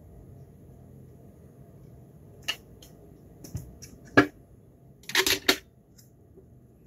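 Hard plastic clicks from handling a Dark Skys DS-1 home planetarium projector and its black plastic disc holder as the holder is slotted into the side of the unit. There are a few scattered clicks, a sharp click about four seconds in, then a quick cluster of clicks around five seconds.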